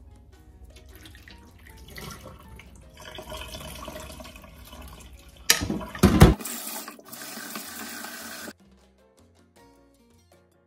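Glutinous rice being washed in a pan of water in a stainless-steel sink: water swishing as the rice is stirred with a wooden spatula. A few sharp knocks come about halfway through, then a tap runs for about two seconds and stops abruptly.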